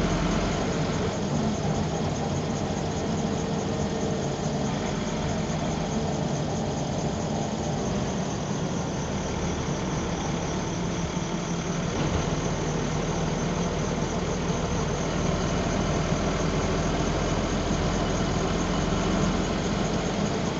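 Diesel engine of a double-decker bus running, heard from the back seat: a steady low hum.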